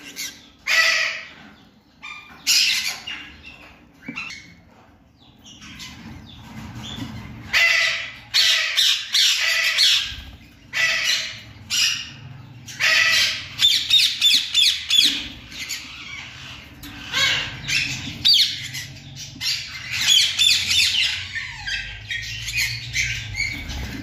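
Newly hatched parrot chicks in a nest box giving repeated short begging squawks, in clusters, with a quieter stretch a few seconds in.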